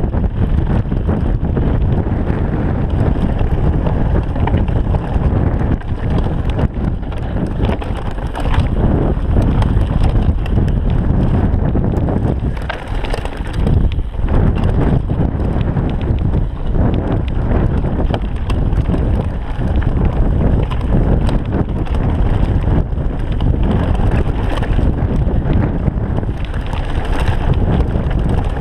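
Heavy wind rumble on the microphone as a mountain bike rides fast down a dirt singletrack, with frequent knocks and rattles from the bike and tyres over rough ground.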